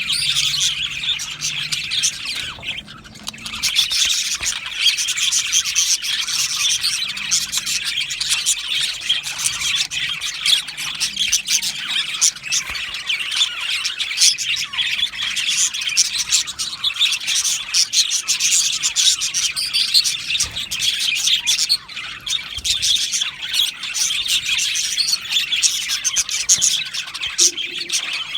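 A flock of budgerigars (budgies) chattering continuously in an aviary: a dense overlapping mix of chirps, warbles and squawks, with a brief lull about three seconds in.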